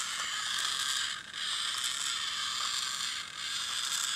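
Micro motor and plastic gear train of a single-motor toy robot dog whirring steadily as its one linkage drives the four legs, with a brief drop about every two seconds. It is on its last charge and barely able to walk.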